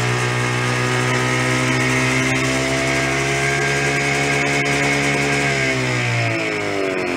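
1978 Jawa 634 350 two-stroke twin engine running steadily, then slowing about five and a half seconds in, its pitch falling as it runs out of fuel and goes lean.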